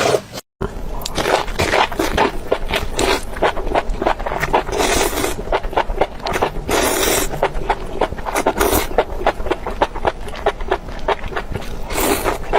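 Close-miked eating: dense, irregular crunching and chewing of food, with a few louder noisy bursts in the middle and near the end.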